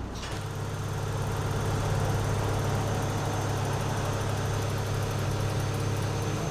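Vehicle engine idling steadily with an even low hum, coming in just after the start.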